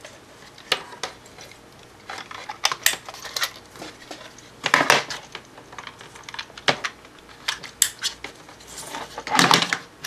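Irregular plastic clicks and clatter from handling a network cable tester and snapping the cable's RJ45 plugs into its ports, with louder clusters of clicks about halfway through and near the end.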